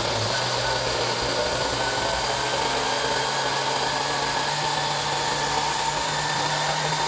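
Countertop electric blender running steadily, grinding green corn kernels with milk into a thick mash. The motor's hum climbs a little in pitch partway through.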